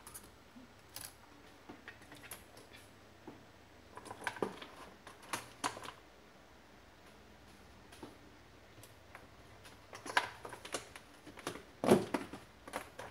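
Scattered light clicks and knocks from small electronics parts and cables being handled, coming in clusters, with the loudest knock about twelve seconds in.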